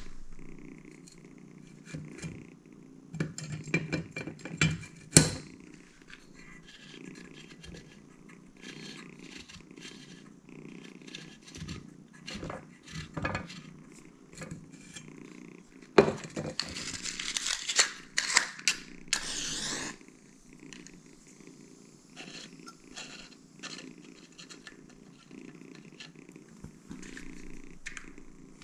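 A kitten purring steadily, a low rumble that goes on throughout. Over it come scattered clicks and knocks from hands handling the lamp, and about halfway through a sharp strike followed by a few seconds of hissing.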